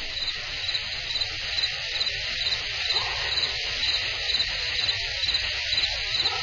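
A steady high chorus of insects chirping, with pulsed chirps repeating several times a second.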